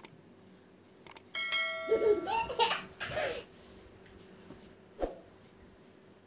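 A toddler laughing and giggling for a couple of seconds, over a ringing bell-like chime that starts just before the laugh. A short soft thump about five seconds in.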